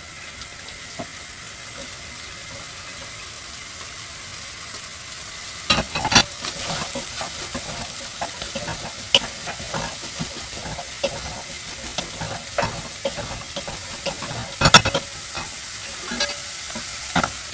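Diced carrots and spam sizzling in a saucepan, frying in the spam's rendered fat. From about six seconds in, a wooden spatula stirs and scrapes through the food, knocking against the pan many times, with one louder knock a few seconds before the end.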